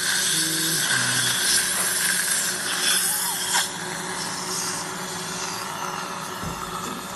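Dental suction tube hissing steadily during implant surgery, with a couple of sharp clicks a little past halfway.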